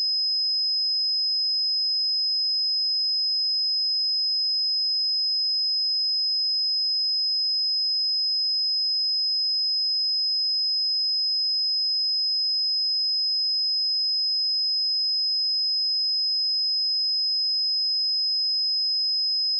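A steady pure 5074 Hz sine-wave test tone, a single high-pitched whistle-like pitch held at constant level.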